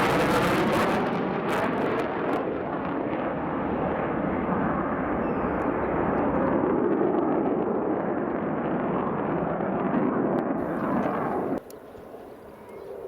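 Mitsubishi F-2 fighter's single F110 turbofan running loud, a rough rushing noise with sharp crackles in the first couple of seconds, slowly dulling as it goes, then cutting off abruptly near the end.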